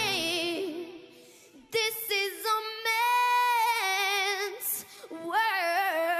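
A young girl singing solo into a microphone, holding long notes with vibrato. The backing music drops out at the start, leaving her voice almost alone, with a short near-silent pause about a second and a half in.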